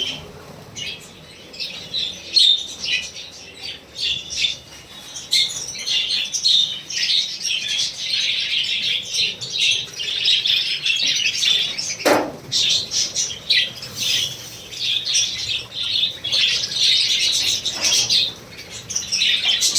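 A flock of lovebirds and budgerigars chattering, with dense, high-pitched chirps and squawks overlapping throughout. Wings flutter now and then, with two louder sudden sounds about twelve and eighteen seconds in.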